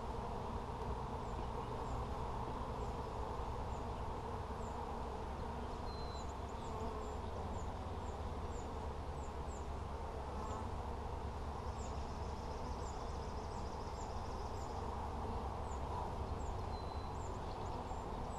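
Honeybees buzzing around an opened hive: a steady low hum, with faint high chirps scattered over it.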